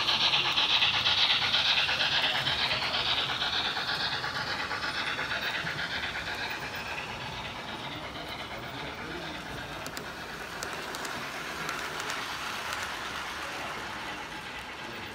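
Märklin H0 model train, an SBB C5/6 steam locomotive hauling freight cars, running on the layout track with a metallic rattle of wheels on rails. It is loudest at the start and fades gradually as the train moves off.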